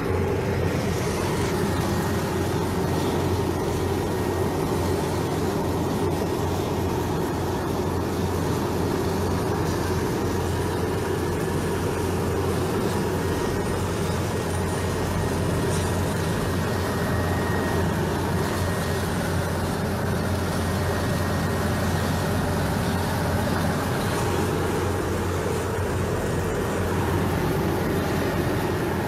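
Helicopter cabin noise from inside the passenger cabin: engine and rotor running with a steady low drone and a faint high whine.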